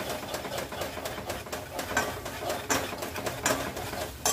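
Metal spoon stirring and scraping in an aluminium pot as curd fries in hot spiced oil: irregular scrapes and clicks against the pot, with a sharper click near the end.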